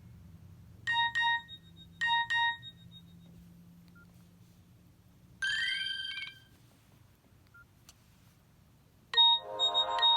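Nokia 6681 mobile phone's speaker playing short alert tones: two quick double beeps about a second apart, then a brief rising chirp about halfway through. About a second before the end, a louder polyphonic ringtone melody starts.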